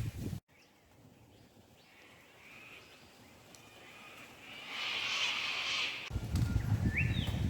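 Birds calling in bushland: a harsh call lasting about a second and a half, about five seconds in, and a short rising chirp near the end. A low rumble stops suddenly under half a second in and comes back about six seconds in.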